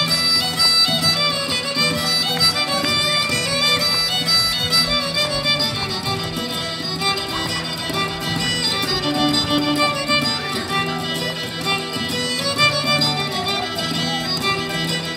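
Fast Irish dance music led by fiddle, with quick running melody notes over a steady accompaniment.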